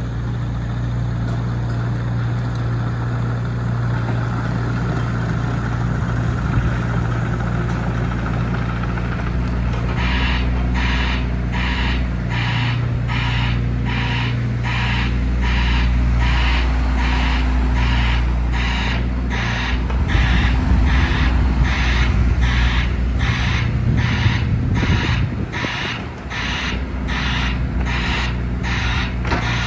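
JCB 8014 mini excavator's diesel engine running steadily. About a third of the way in, a beeping alarm starts and repeats a little faster than once a second.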